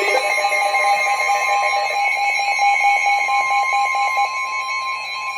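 NOAA Weather Radio alert tones: a buzzing, rapidly pulsing alarm tone, joined about three seconds in by the steady single-pitch 1050 Hz warning alarm tone that precedes the reading of a warning.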